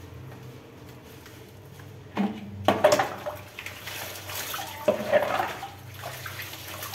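Water poured from a plastic bowl splashing over bunches of cilantro and vegetables in a concrete sink, rinsing off soap and dirt. The splashing starts about two seconds in, with the loudest pours then and again near five seconds.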